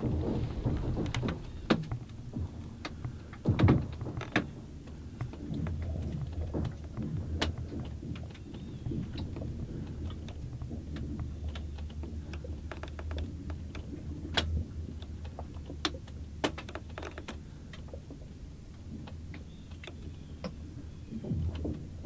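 Spring lake ice shifting and cracking along the shore as the sun warms it: sharp snaps and pops come irregularly throughout, the heaviest crack about three and a half seconds in, over a low moaning rumble.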